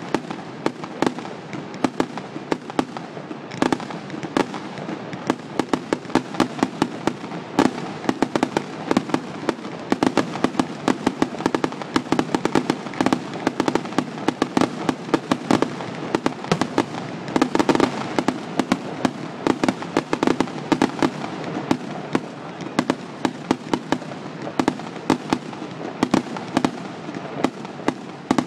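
Fireworks display with shells bursting in rapid, continuous succession, many sharp bangs a second over a steady rumble.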